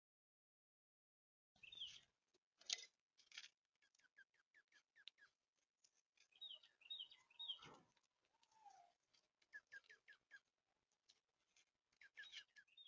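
Faint songbird chirps and calls: several short runs of quick repeated notes, a few higher thin notes near the middle, and scattered small clicks.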